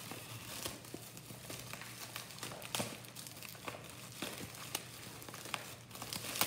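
Packing wrap crinkling and rustling in the hands as an item is unwrapped, in irregular crackles.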